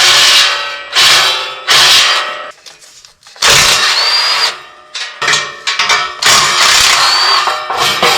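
Handheld power tool run in short bursts, about seven times, each starting sharply and trailing off.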